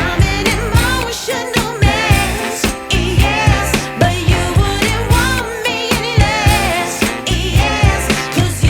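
Background pop song with a steady drum beat and a singing voice.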